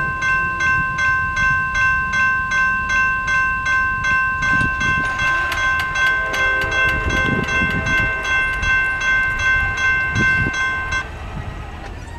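Railroad crossing bell ringing about twice a second while the crossing gates come down, stopping about eleven seconds in once the gates are lowered.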